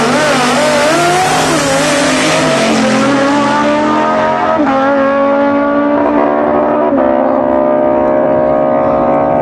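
A dragster and a drag motorcycle launching side by side, their engines at full throttle. The pitch wavers off the line, then climbs and drops sharply at gear changes about two and a half, four and a half and seven seconds in, growing duller as they run away down the strip.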